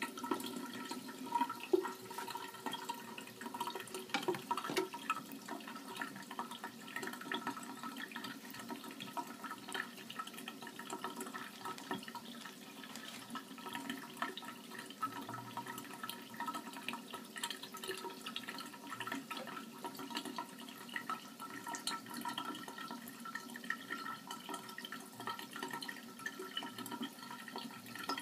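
Water running steadily into a sink, with many small drips and splashes, over a faint steady hum.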